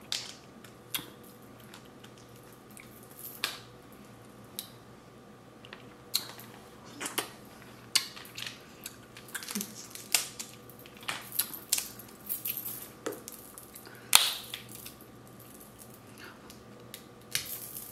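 Crab legs being cracked open and picked apart while eating: irregular sharp cracks, snaps and clicks, thickest about ten to thirteen seconds in, with the loudest crack about fourteen seconds in.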